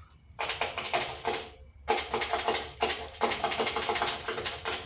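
Vintage car's engine being cranked by its starter in two tries, a short one and then a longer one, with a fast rattling clatter over a steady whine. The engine does not catch.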